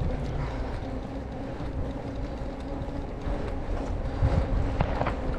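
Bicycle rolling along a brick-paved path: steady tyre rumble with wind on the microphone, and a few short knocks and rattles from the bike about four to five seconds in.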